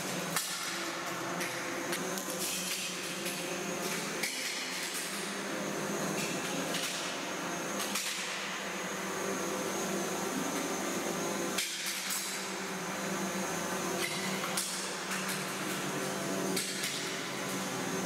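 Small quadcopter drone hovering, its propellers giving a steady buzzing hum. Several sharp knocks or cracks sound a few seconds apart.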